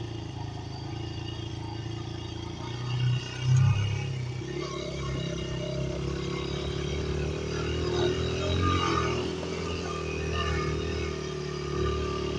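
Dirt bike engine running while the bike is ridden over grass, with two short loud bursts of throttle about three seconds in.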